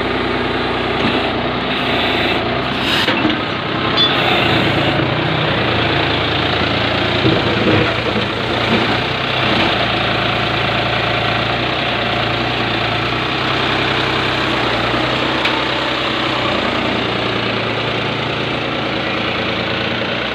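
Diesel engine of a New Holland 6510 tractor running steadily at idle.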